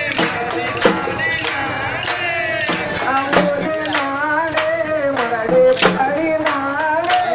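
Music for a kolatam dance: a voice singing a wavering melodic line over sharp, repeated percussive beats.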